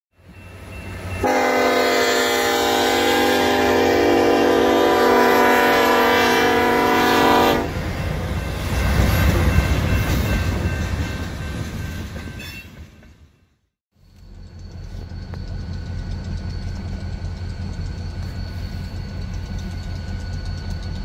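Diesel freight locomotive's air horn blowing one long blast of about six seconds, followed by the rumble of the train rolling past. After a brief drop-out, a steady low rumble takes over.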